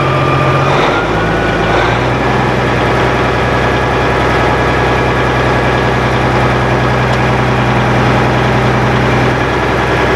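Caterpillar 3406 turbo diesel engine of a Rexworks Maxigrind 460G horizontal grinder running steadily under load. About a second in, its note shifts and a higher whine rises in pitch, then holds.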